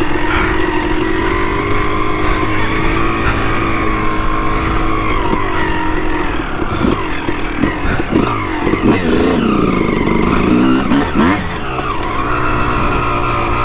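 Dirt bike engine running hard while riding, its pitch dipping and climbing again about two-thirds of the way through.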